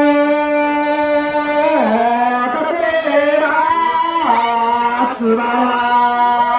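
Singing in long, held notes that step and slide in pitch, with more than one pitched line sounding together.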